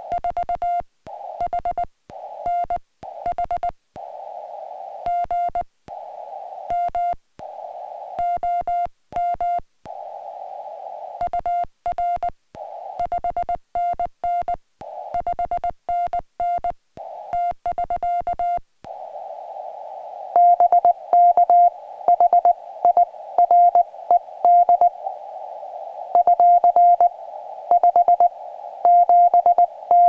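Morse code from a ham radio transceiver: a single steady beep keyed on and off in dots and dashes over narrow-band receiver hiss. For the first two-thirds the hiss drops out briefly between groups with faint clicks; from about twenty seconds in the beeps are louder over unbroken hiss.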